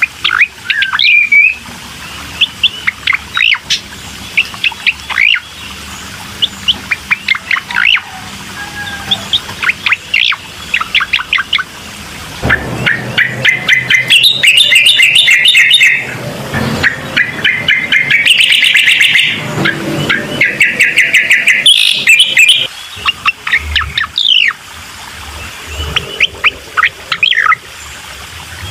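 Recorded song of a cucak koreng, played as a lure to get other birds to sing: quick chirps and whistled notes, with several dense, fast trilled phrases in the middle part.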